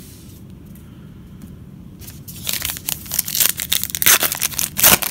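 Trading card pack wrapper being torn open and crinkled by hand. After about two seconds of quiet, a dense run of crackling and tearing starts and grows, loudest near the end.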